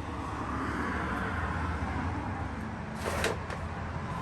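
A 110cc four-wheeler's small single-cylinder engine running steadily with a low hum, swelling a little partway through, and one short click about three seconds in.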